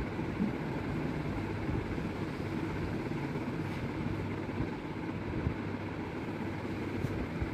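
A steady low hum and rumble, like a motor running, that holds even throughout with no distinct events.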